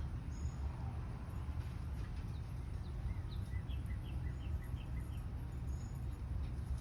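Quiet outdoor ambience: a steady low background rumble, with a bird faintly chirping a quick series of short falling notes, about three a second, in the middle.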